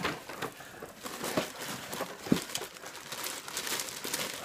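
Brown packing paper crumpling and crinkling as it is handled, with a few sharper crackles.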